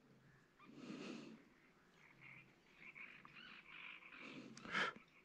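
A person breathing out sharply near the microphone twice, softly about a second in and louder near the end, with faint high chirps between.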